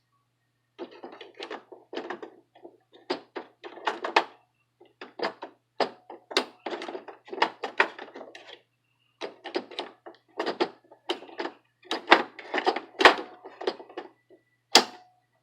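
Plastic clicks, knocks and rustles of an HP 63 black ink cartridge being handled and fitted into an HP Envy inkjet printer's cartridge carriage, including the latch being flipped up and snapped back down. The clicks come irregularly over the whole stretch, with a couple of sharper snaps near the end.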